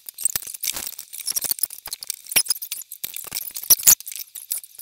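Rubber loom bands and a loom hook working over the pegs of a plastic loom: a rapid, irregular run of small clicks and squeaks as the bands are stretched and slipped onto the pegs.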